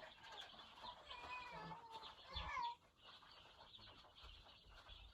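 Day-old broiler chicks peeping, many short high calls, with one louder gliding call about two and a half seconds in.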